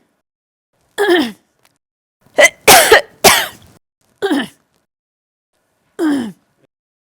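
A woman coughing: a single cough, then a quick run of three coughs, then two more single coughs spaced well apart, with silence between them. Each cough has a voiced tail that drops in pitch.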